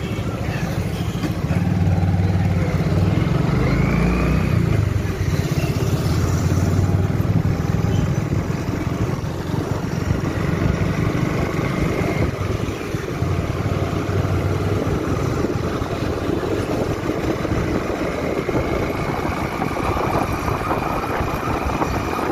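A motorbike's engine running as it is ridden along a road, its low hum shifting a few times as the speed changes, over a steady rush of road and wind noise.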